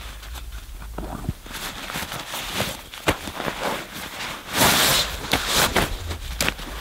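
Nylon sleeping bag rustling and crinkling as it is pulled out of its compression stuff sack, in a run of swishes, with a sharp click about three seconds in and a louder burst of rustling near the five-second mark.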